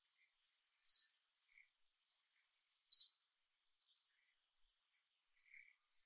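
Sharp, high bird chirps in the background: two loud ones about two seconds apart, with fainter calls between, over a faint steady high-pitched hum.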